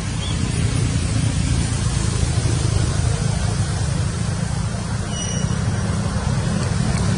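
Steady low rumble with an even hiss over it, like wind buffeting an outdoor microphone or distant traffic. About five seconds in there is a faint, brief high chirp.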